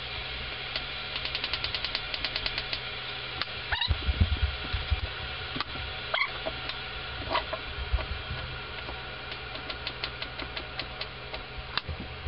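Chef's knife chopping carrot on a wooden chopping board: quick runs of taps, about eight a second, once early and again near the end, with a heavier thump about four seconds in. A faint steady low hum lies underneath.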